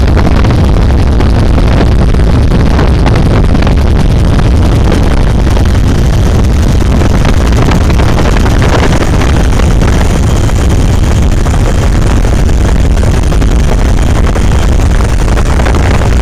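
Helicopter engine and rotor noise, heard from aboard the aircraft: a loud, steady, deep rumble that does not change.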